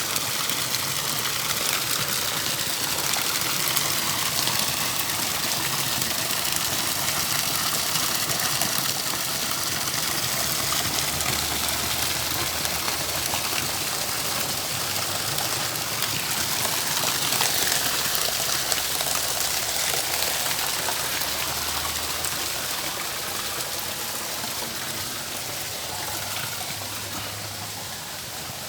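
Running water pouring and splashing in a steady rush, easing off slightly near the end.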